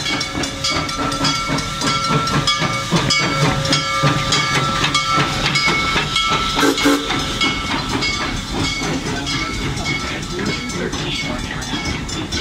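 Narrow-gauge steam locomotive passing at low speed with steam hissing, then its open passenger cars rolling by on the rails, while a bell rings steadily and repeatedly.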